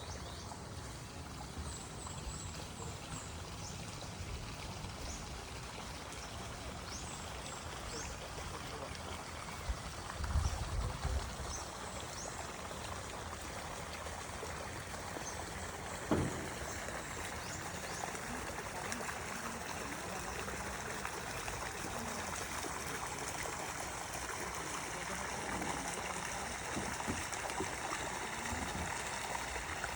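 Stream water flowing steadily. A few short, high chirps come over it in the first several seconds, a brief low rumble about ten seconds in, and a single sharp knock around sixteen seconds.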